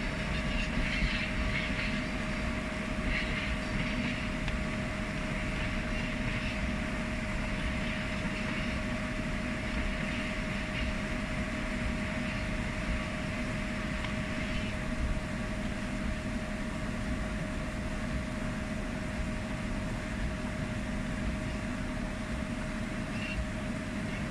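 Freight train of tank wagons rolling past and away, wheels clicking over rail joints for the first few seconds, then a steady rumble with a constant hum underneath.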